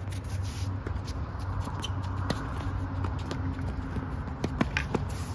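Doubles tennis rally on a hard court: sharp, irregular knocks of racket strikes and ball bounces, with players' footsteps, over a steady low background rumble.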